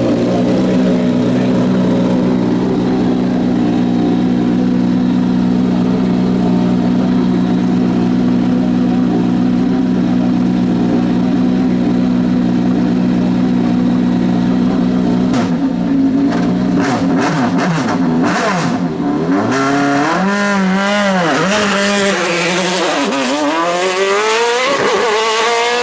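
Race car engine held at steady revs on launch control for about fifteen seconds. Then comes a run of sharp bangs, and the car launches, its engine note climbing and dropping repeatedly as it accelerates away through the gears.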